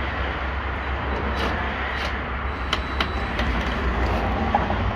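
Steady low background rumble of outdoor ambient noise, with a few faint light clicks about a second and a half, two and three seconds in.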